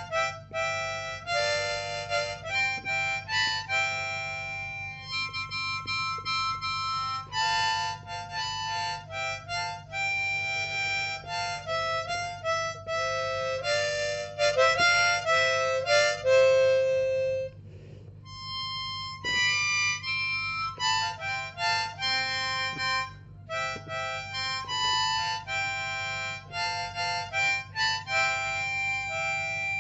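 Solo harmonica playing a slow melody of held notes, sometimes two notes at once, with a brief pause a little past halfway.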